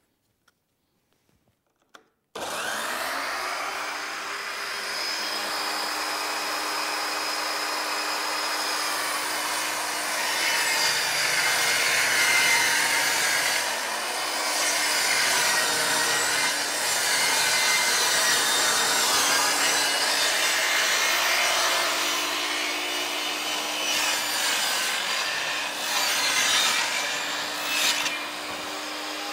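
Safety Speed Cut Panel Pro 2 vertical panel saw starting suddenly after about two seconds of near silence, then running and cutting as a plywood sheet is fed through it in a rip cut. The cutting noise swells and eases a little as the sheet moves along the blade.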